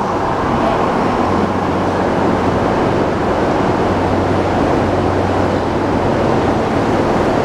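Tokyo Metro Tozai Line train moving alongside the platform in an underground station: a loud, steady rumble of wheels and running gear with a steady low hum beneath it.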